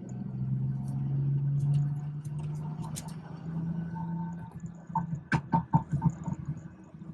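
BMW 440i's tuned B58 turbocharged inline-six pulling steadily and swelling to its loudest, then easing off, followed about five seconds in by a quick run of sharp, irregular exhaust pops and crackles.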